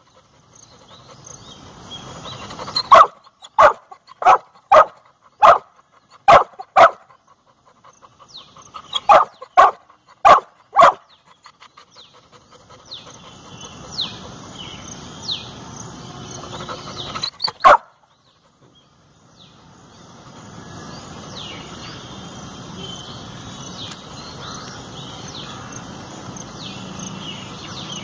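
A dog barking in sharp single barks, about seven in quick succession and then four more a couple of seconds later, with one more bark well after. Later a steady outdoor background with birds chirping comes in.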